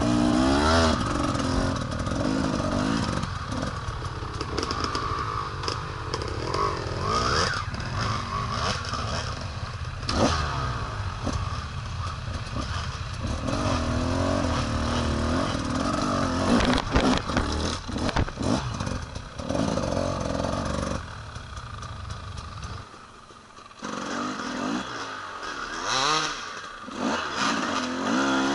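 Enduro motorcycle riding off-road, its engine revving up and down as the throttle opens and closes, with a few sharp knocks along the way. About three-quarters of the way through the engine drops back for a couple of seconds, then picks up again.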